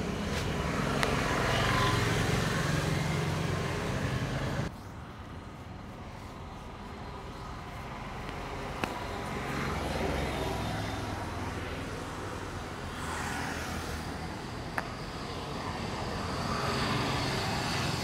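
Steady roadside traffic noise, broken three times by a single sharp pop of a joint being cracked by hand: first in the wrist and fingers, then twice in the neck.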